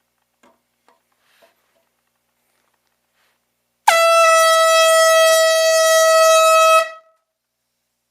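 Handheld marine/sports air horn giving one loud, steady blast of about three seconds, starting about four seconds in and cutting off sharply.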